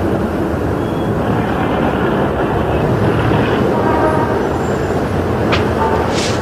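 Street traffic running steadily, with a brief car horn sounding about four seconds in.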